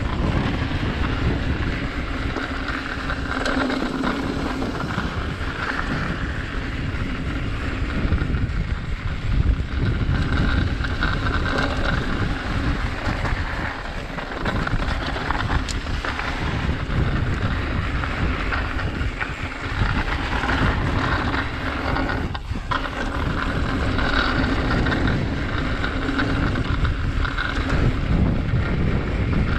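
Wind buffeting a GoPro's microphone during a mountain-bike ride down a trail, mixed with the steady rumble and rattle of the bike's tyres and frame over rough ground.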